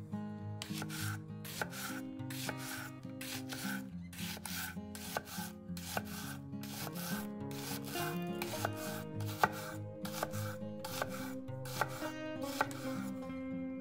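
Kitchen knife chopping a vegetable on a cutting board in steady, even strokes, about two a second. Soft background music plays underneath.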